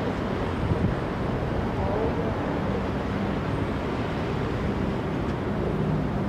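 Steady outdoor background noise with a low engine hum running under it, and faint distant voices about two seconds in.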